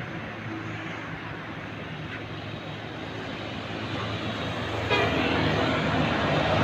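Bus approaching, its engine and road noise growing steadily louder, with a jump in level about five seconds in.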